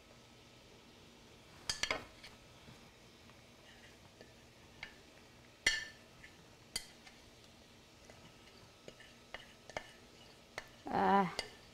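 A fork clinks and scrapes against a plate as butter-and-flour paste is scraped off into a pan of sauce: three clear clinks with a few lighter ticks between. A short vocal sound comes near the end.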